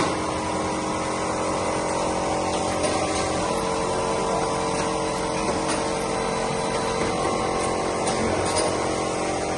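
Automatic water bottle filling and capping machine running: a steady motor hum and whine with the conveyor moving small plastic bottles through the capping head.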